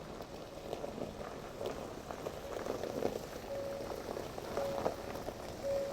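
Water boiling, a steady bubbling with small crackles, and a thin steady tone that comes and goes three times in the second half.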